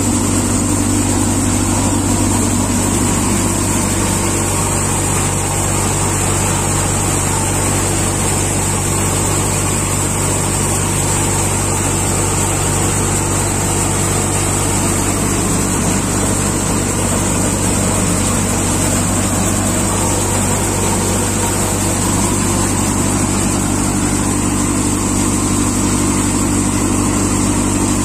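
Multicrop thresher running steadily, a constant low machine hum with a steady high hiss over it, unchanged throughout.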